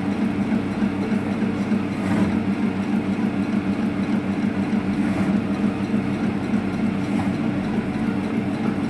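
Electric cleaver-type meat mincing machine (satır kıyma / tantuni machine) running steadily, its motor-driven blades chopping strips of raw meat fed into the hopper into small pieces; a continuous fast-pulsing mechanical hum.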